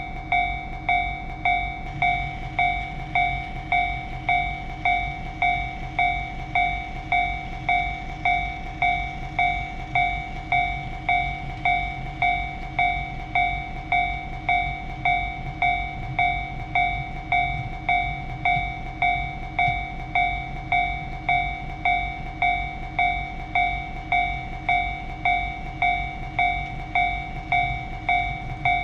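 Japanese railroad crossing warning bell ringing steadily, an evenly repeating ding about twice a second, over a low rumble of a passing train.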